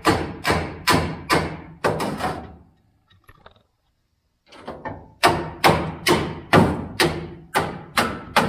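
Repeated hammer blows on steel, about two a second, each with a short ring. They stop for about two seconds in the middle, then resume at the same pace.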